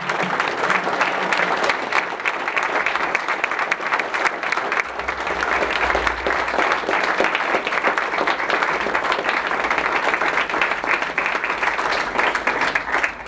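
A large crowd applauding: many people clapping in a dense, steady patter that holds at the same level throughout.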